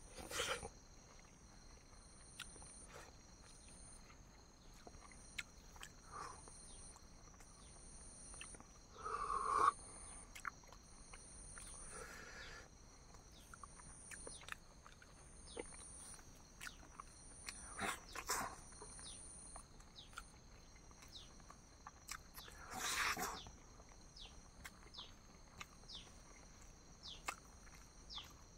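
Occasional chewing and mouth sounds of someone eating boiled eggs, heard over steady insect chirping: a high trill pulsing about once a second alongside constant high tones.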